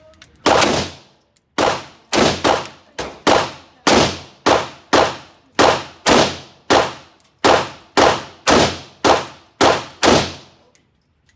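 A rapid string of about eighteen gunshots from one firearm, about two a second, each followed by a ringing echo. The firing stops shortly before the end.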